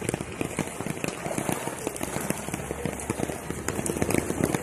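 Heavy rain falling on an umbrella held close to the microphone: a dense, uneven crackle of drop hits over the hiss of the downpour.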